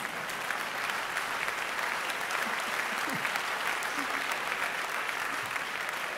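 Audience applauding steadily, with a few faint voices in it.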